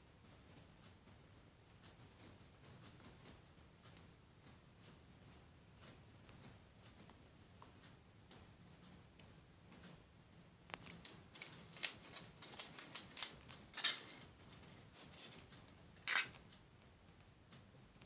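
Foil wrapper of a Kinder Surprise chocolate egg being picked at and peeled off by hand. Faint scattered crinkles at first, then from a little past halfway about six seconds of dense crackling crinkles, with the loudest crackles near the end.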